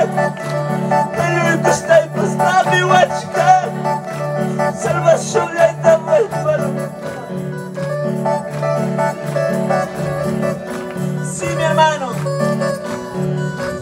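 A worship band playing through a PA: singing over plucked strings and a steady, pulsing bass line.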